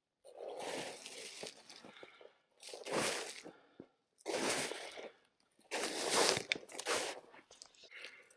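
Boots crunching through snow, one step after another at an uneven pace.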